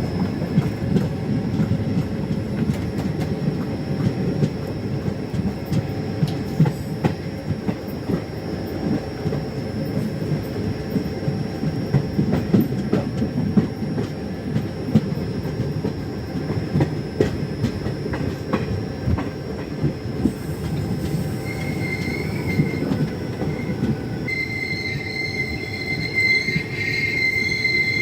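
Passenger train running along the track: a steady rumble of wheels on rails with scattered clicks. From about 21 seconds in, a high-pitched squeal joins, stopping briefly and returning stronger near the end.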